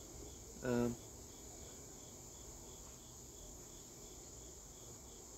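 Faint cricket chirping steadily, evenly spaced chirps a little under three a second. Near the start there is one short hum from a man's voice.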